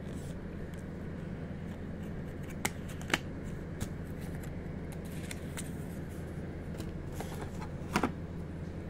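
A plastic phone case and packaging tray being handled: a few sharp light clicks and taps spread out, the loudest near the end, over a steady low hum.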